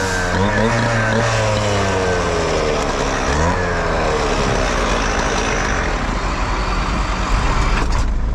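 Road vehicle engine and road noise while driving. The engine's pitch slides down, climbs again about half a second in and once more about three seconds in, then settles into a steady rumble. A short clatter comes near the end.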